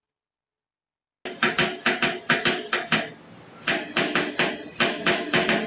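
A fast run of sharp knocks, about six a second, starting a little over a second in, breaking off briefly and then starting again for a second run.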